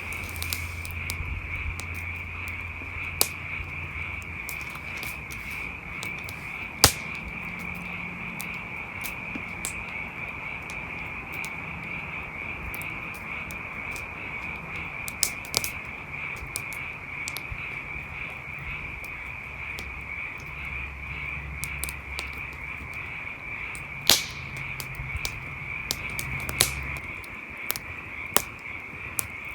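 Wood campfire crackling with sharp, scattered pops over a steady, high-pitched insect trill. A low rumble comes and goes underneath.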